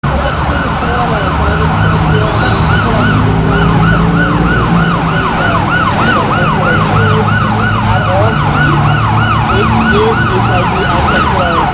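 Emergency-vehicle siren in a fast yelp, its pitch sweeping up and down about three times a second without a break, loud over a low steady hum.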